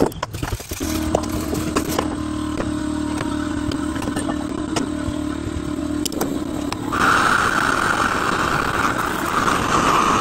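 An air compressor runs steadily with a low hum while a wire fitting brush scratches and clicks against copper fittings. About seven seconds in, a soldering torch is lit and hisses steadily.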